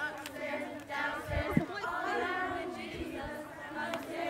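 A group of young voices singing a worship song together, with a short thump about a second and a half in.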